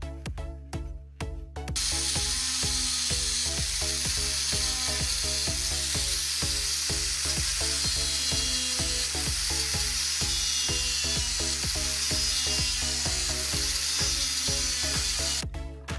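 Background music with a steady beat. From about two seconds in until near the end, a loud, steady abrasive hiss lies over it: rust being worked off a metal knife blade.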